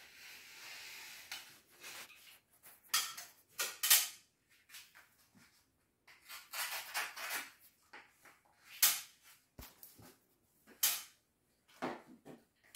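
Wallpaper being worked along the ceiling edge with a plastic smoothing spatula (marouflette): a hissing stroke over the paper at the start, then short scraping and rustling strokes at irregular intervals.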